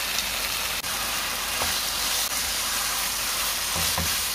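Spiced chicken and tomato filling, cooked down nearly to a paste, sizzling in a frying pan. A spatula stirs it in, knocking lightly against the pan a couple of times.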